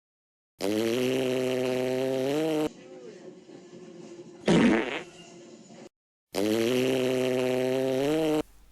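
Fart sound effect played twice: a long, low buzzing blast about two seconds long whose pitch rises a little at the end, then the same blast again. Between them comes a quieter stretch with a short, louder burst.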